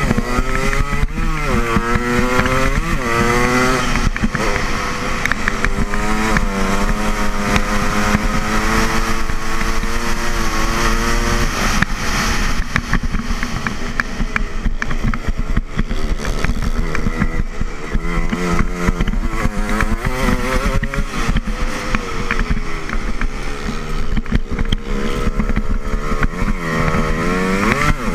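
Yamaha dirt bike engine heard close up from onboard while racing. Its pitch climbs hard under acceleration and drops back again and again as the rider throttles up and eases off through the laps.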